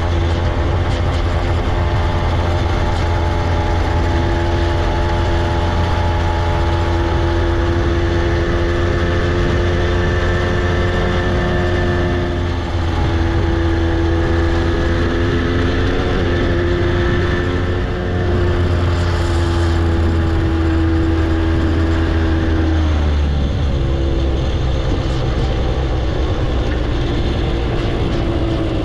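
Vintage Hodaka motorcycle's single-cylinder two-stroke engine running steadily at road speed, heard from on the bike. The engine note dips and recovers several times, then falls to a lower pitch about twenty-three seconds in.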